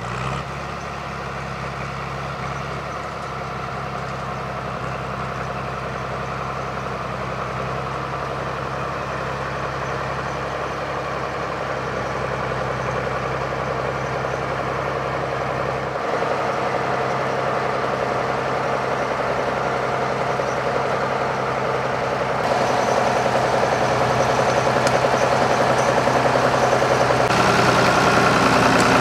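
Diesel engine of a UTB 1010 DT 4x4 tractor running steadily. It grows louder over the stretch, partly in a few sudden steps.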